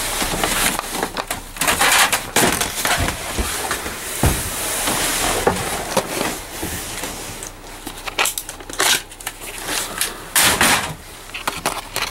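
Rummaging through cardboard boxes and junked electronics: cardboard crunching and rustling, with irregular knocks and clatters of hard objects being shifted.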